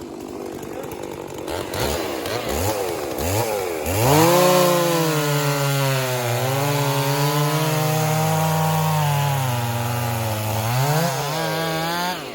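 Two-stroke chainsaw blipped a few times, then throttled up at about four seconds and held at high revs in a cut, its pitch sagging and recovering under load, until it drops off sharply near the end.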